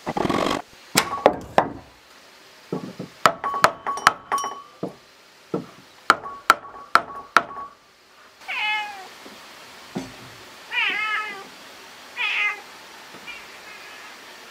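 A hammer knocks on a wooden block to drive a wooden cat-door frame into a door, a run of sharp strikes. Then a cat meows three times, with a fainter fourth meow near the end.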